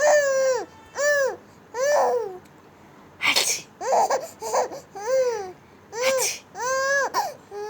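Baby girl laughing in a run of high-pitched squealing laughs, about one a second. Two short noisy bursts, about three and six seconds in, are the sneezes that set her laughing.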